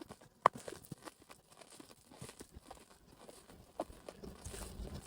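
Pony's hooves striking the ground at a walk: scattered, uneven knocks, the sharpest about half a second in, with a low rumble near the end.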